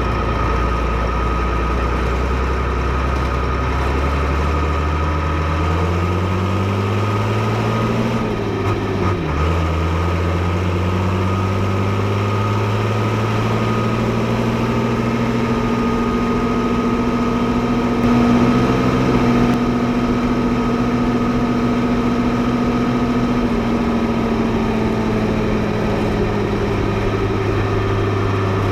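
Fiatagri 115/90 tractor's six-cylinder 5.9-litre Fiat diesel engine running. It idles at first, is revved up a few seconds in with a brief dip near nine seconds, and is held at a higher speed before slowly easing back down near the end.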